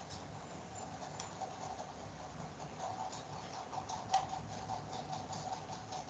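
Light, irregular clicks and taps, with one sharper click about four seconds in, over a faint steady whine.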